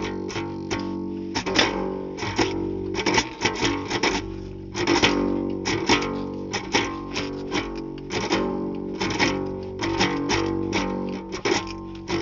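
Instrumental guitar passage between sung verses of a song: picked and strummed chords over a steady bass.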